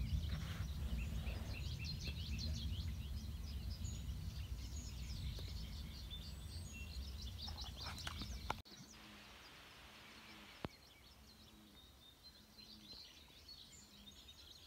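Many birds chirping and calling at once, over a low rumble. The rumble cuts off abruptly about eight and a half seconds in, leaving thinner, quieter birdsong and a single sharp click.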